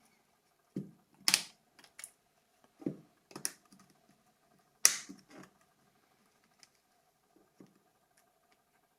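Plastic parts of a Nokia 7230 slide phone being handled: a series of irregular, separate clicks and taps, the sharpest about a second and a half in and again near five seconds.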